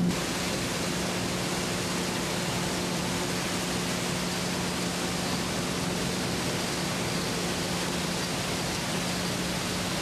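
Glass-recycling plant machinery running: a steady rushing noise with a low hum underneath.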